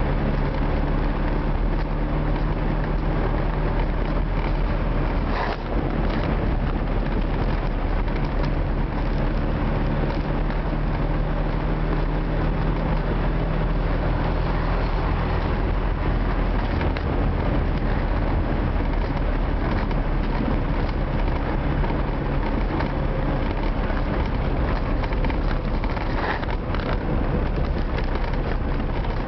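Old Moskvich car driving, heard from inside the cabin: steady engine drone over road and tyre noise. The engine note changes about halfway through.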